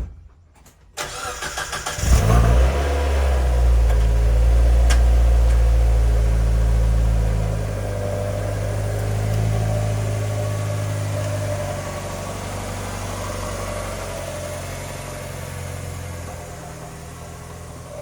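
Mazda Miata's four-cylinder engine being started: the starter cranks for about a second, then the engine catches and runs at a high idle. After several seconds it settles to a lower, steady idle and grows slightly fainter near the end.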